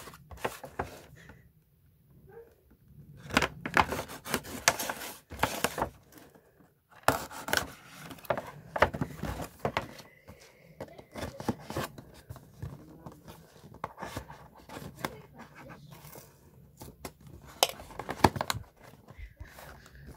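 Cardboard box being opened by hand: irregular scraping, tapping and tearing of cardboard and packing tape as the tape is slit with a serrated knife and the flaps are pried apart.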